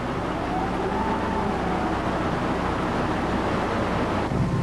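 Diesel engines of a wheel loader and a dump truck running steadily as the loader lifts its bucket to load the truck, with a whine that rises and falls about a second in. The sound changes abruptly near the end.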